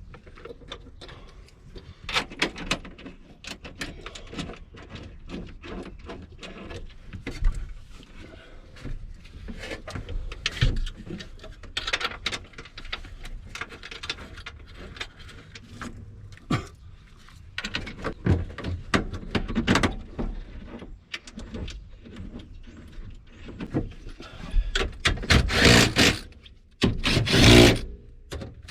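Hand work on a hybrid battery pack being fitted into a car: scattered clicks, knocks and rubbing of tools, bolts and parts, with a run of louder rattling and scraping near the end.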